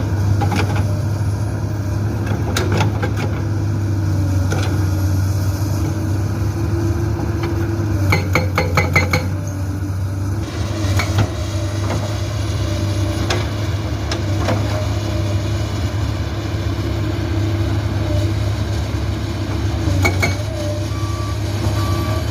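Komatsu PC200-8 excavator's six-cylinder diesel engine running steadily under load. Scattered sharp metallic clanks come through it, and about eight seconds in there is a short rapid run of hydraulic breaker blows on rock.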